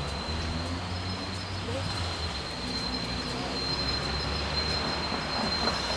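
Diesel commuter train approaching slowly with its cab car leading: a steady low engine drone with a thin, high wheel squeal held over it.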